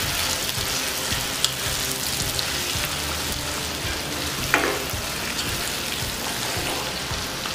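Chicken pieces frying in spiced oil in a nonstick kadai, sizzling steadily while a spatula stirs them, with a louder scrape of the spatula against the pan about four and a half seconds in.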